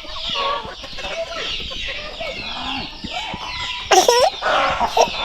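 Domestic chickens in a poultry house: young chicks peeping in a steady run of high falling chirps about twice a second while hens cluck lower underneath, with one louder, sharper hen call about four seconds in.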